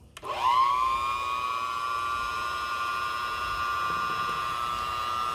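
Black & Decker Helix hand mixer switched on with a click about a quarter second in, its electric motor whine rising quickly in pitch and then running steadily as the beaters mix cake batter.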